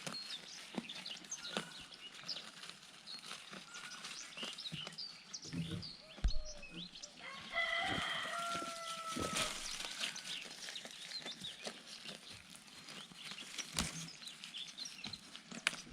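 Domestic fowl: a rooster crows once, one drawn-out call of about two seconds near the middle, amid clucking and the short chirps of small birds. A couple of low thumps come just before the crow.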